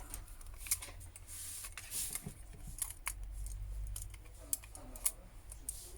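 Scattered light clicks, taps and a brief rustle of small smartphone parts and repair tools being handled on a work surface, as the new LCD is being hooked up to the motherboard for a test, over a low steady hum.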